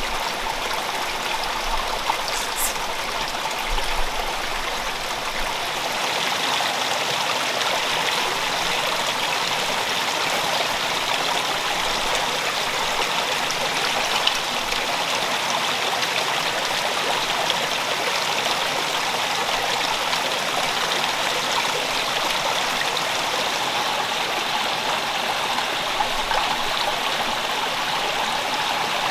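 Small shallow forest stream running over rocks, a steady rush of water.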